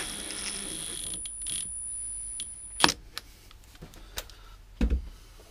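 Milwaukee Fuel brushless cordless driver spinning bolts home on a differential case, a steady high-pitched motor whine for about three seconds that stops with a click. A dull thump comes near the end.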